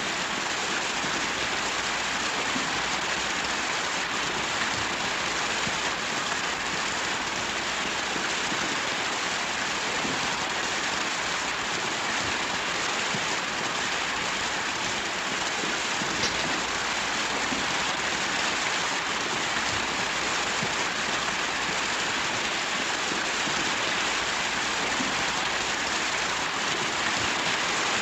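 Steady rain, an even hiss that holds at one level without thunder.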